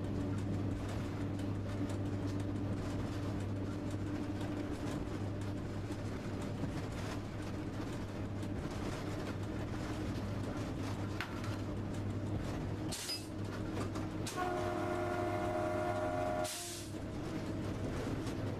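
Steady hum and running noise inside the cab of an electric train under way. About fourteen seconds in, a train horn sounds a chord of several tones for about two seconds.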